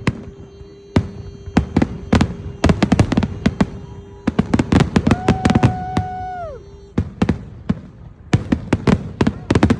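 Fireworks grand finale: rapid bangs and crackling shell bursts, thickest from about a second in and again near the end. Under them a steady pitched tone holds for about seven seconds, joined around five seconds in by a higher tone that sags as it stops.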